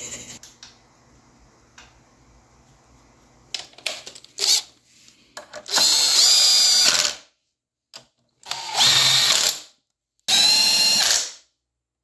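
Cordless drill driving bolts on the motor mount: a few clicks as the bit is set, then three runs of about a second each, with a steady motor whine.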